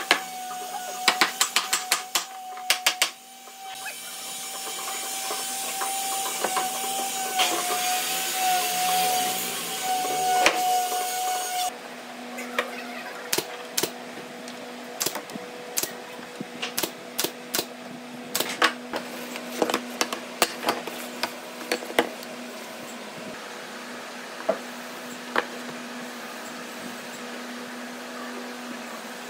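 Workshop tool sounds on pine boards: sharp knocks, then about eight seconds of steady rushing noise with a held tone that stops abruptly. After that comes a run of sharp snaps from a pneumatic nail gun driving nails into the wood, over a low steady hum.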